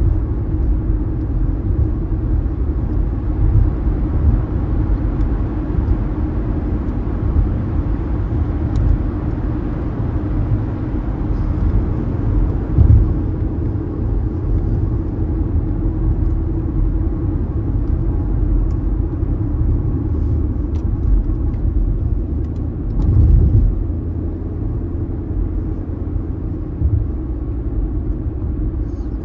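Steady low road and engine rumble from inside a moving car. It grows briefly louder twice, about halfway through and again later on.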